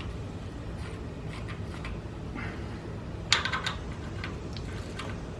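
A few light clicks and small handling noises, the clearest cluster about three seconds in, over a low steady background hum.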